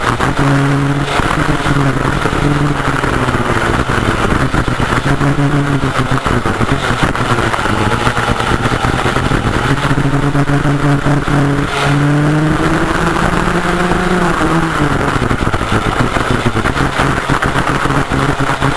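Vintage rear-engine racing kart's two-stroke engine, heard from on board at speed: the note holds high, then drops and climbs back several times as it lifts off and accelerates through corners, with a longer fall and rise around the middle. A steady rush of wind and tyre noise runs underneath.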